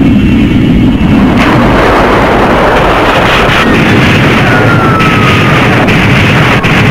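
Loud, continuous film sound effects of a hydrofoil boat under fire: engine and spray noise mixed with explosions that throw up water spouts around it. A faint falling whistle comes about halfway through.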